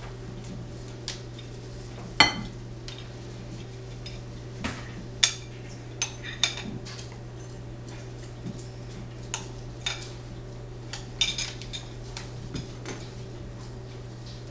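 A utensil clinking and knocking against a mixing bowl as brownie batter is stirred: irregular sharp clinks, a few of them ringing briefly, the loudest about two seconds in and around five seconds, with a cluster near the end. A steady low hum runs underneath.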